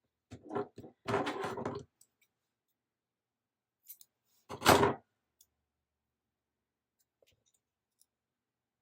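A short spell of rustling and handling noise, then a single sharp thump about four and a half seconds in, the loudest sound present.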